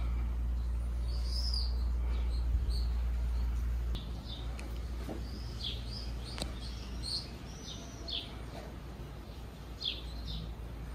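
Small songbirds chirping, many short calls that rise and fall in pitch, over a low rumble that drops away about four seconds in.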